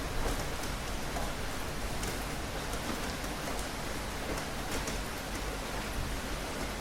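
Steady rainfall, an even hiss with scattered drops ticking on a surface.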